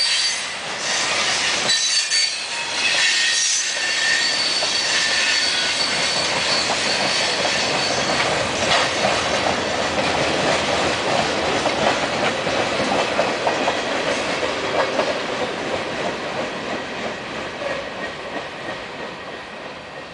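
A freight train's cars, including tank cars, rolling past on the rails. Wheels squeal high for the first few seconds, then a steady rumble with clacking wheels fades away as the last cars go by.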